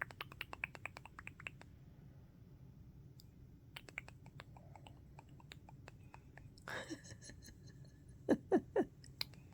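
Budgie's soft, rapid beak and tongue clicking, a quiet clicky chatter. About eight seconds in come three short, louder low pops.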